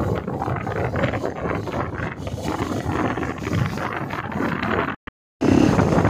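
Wind rushing over the microphone of a moving motorcycle, with the bike's running noise underneath. The sound drops out completely for a moment near the end, then comes back louder.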